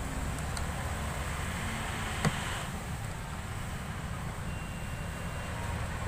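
A hand working the rear door trim of a Honda Mobilio: one sharp click about two seconds in, over a steady low rumble.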